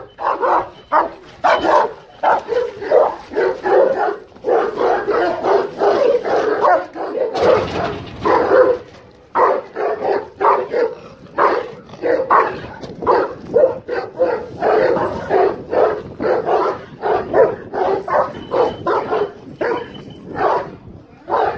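Large Kangal-type Anatolian shepherd dogs barking at each other in a face-off, loud barks coming in quick succession, about two to three a second, with a brief rush of noise about seven seconds in.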